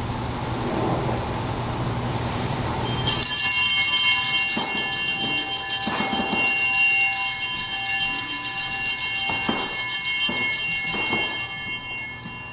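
A cluster of altar bells shaken at Mass, starting sharply about three seconds in. They ring on for roughly nine seconds with several fresh shakes, then fade away near the end.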